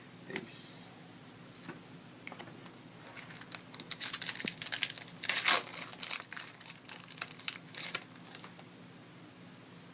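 Crinkly trading-card packaging being handled, a dense run of crackles from about three seconds in until about eight seconds in.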